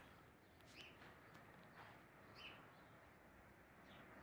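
Near-silent outdoor background with a faint bird giving short, repeated chirps, about one every second and a half.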